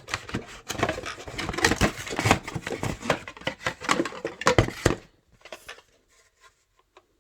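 Hands unpacking a radio controller from its box and plastic packaging: a busy run of clicks, knocks and rustles for about five seconds, then only a few faint clicks.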